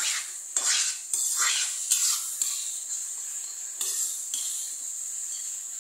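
Metal spatula scraping and stirring mashed pumpkin sabzi around a kadhai, with a quick run of strokes in the first two seconds and a few more about four seconds in. Under it is a steady sizzle as the vegetable's water cooks off over high heat; she stirs continuously to keep it from sticking.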